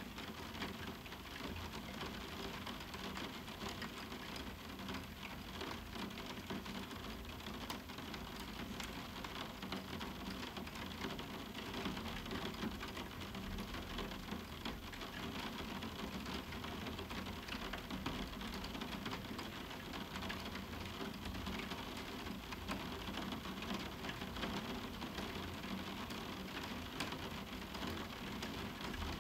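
Moderate rain falling on a roof window: a steady hiss of rain with many single drops ticking on the window.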